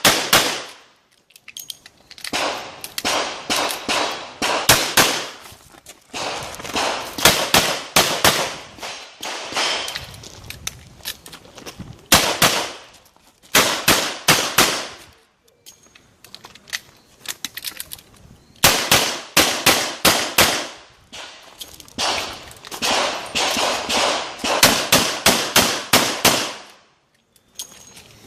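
Chiappa Rhino revolver fired in repeated rapid strings of shots. Each string is a few quick shots over one to three seconds, separated by short pauses.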